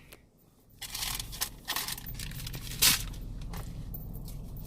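Crinkling and tearing of a paper straw wrapper being opened and handled, with a few sharp clicks and taps, the loudest nearly three seconds in.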